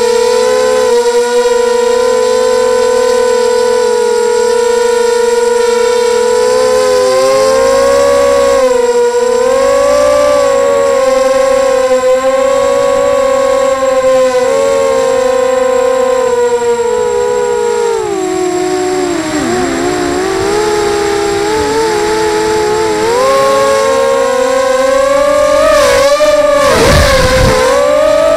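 Brushless motors and propellers of a 250-size mini quadcopter whining, heard from the onboard camera. It is one steady high whine that wavers with the throttle, drops lower about two-thirds of the way through, then climbs again, with a few quick dips near the end.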